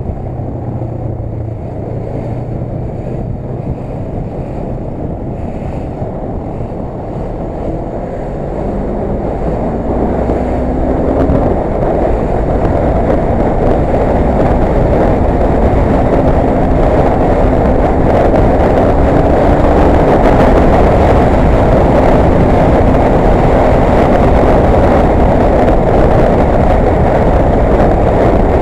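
Motorcycle engine running, then accelerating about nine seconds in, its tone climbing. Wind rushing over the microphone grows louder with the speed and stays loud.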